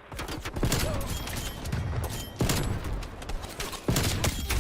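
Video-game gunfire: rapid bursts of shots in a first-person shooter match. Fresh bursts start just after the beginning, about two and a half seconds in, and near the end.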